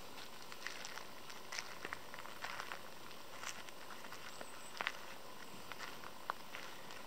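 Faint, irregular light crunches and ticks of footsteps on gravel.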